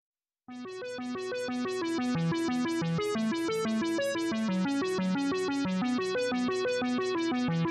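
Background music: a fast keyboard melody of short, evenly spaced notes. It starts about half a second in after a moment of silence.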